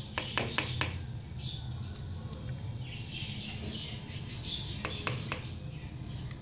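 A plastic serving spoon scraping thick cooked porridge around a nonstick pan, with a few clinks near the start and again about five seconds in as spoonfuls are tipped into a glass bowl.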